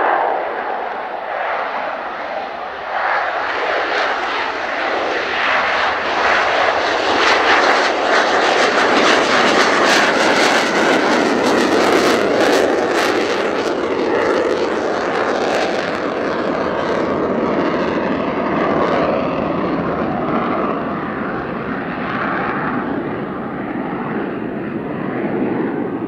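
F-4EJ Kai Phantom II's twin J79 turbojets at full power as the jet lifts off from a touch-and-go and climbs away. The sound builds to its loudest with a harsh crackle as the jet passes close, about eight to fourteen seconds in, then slowly fades as it climbs away.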